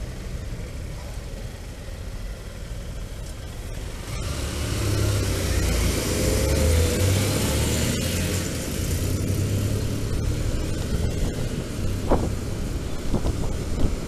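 Road and wind noise from riding an electric scooter through city traffic: a steady rumble and hiss that grows louder about four seconds in, with no engine note from the scooter itself.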